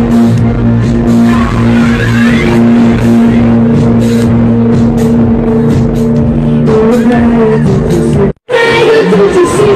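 Live band music, very loud: a long held low note with its overtones under repeated drum hits, with a brief upward glide of a higher line early on. The sound cuts out completely for a split second near the end, then the music returns.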